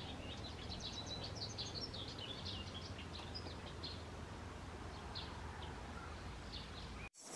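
Small songbirds chirping and twittering, many quick calls at first, thinning out after a few seconds, over a steady low outdoor rumble. The sound cuts off suddenly near the end.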